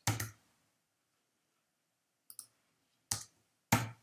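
Computer keyboard keystrokes: a few separate sharp clicks, one at the start, a faint one a little past halfway, and two louder ones near the end.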